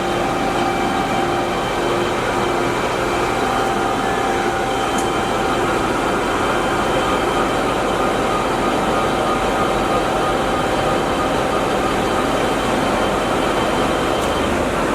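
DoAll by Romi 20" x 120" engine lathe running steadily under power: a constant mechanical hum with a few steady whining tones over it.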